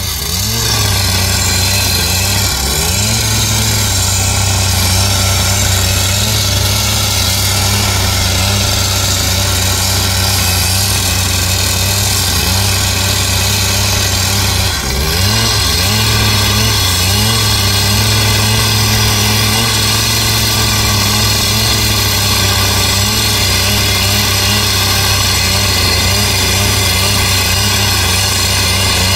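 Petrol cut-off saw running at full revs as its abrasive disc grinds through a steel railway rail, a steady engine drone under a harsh high grinding hiss. The revs dip briefly and climb back about 2.5 seconds in and again about halfway through.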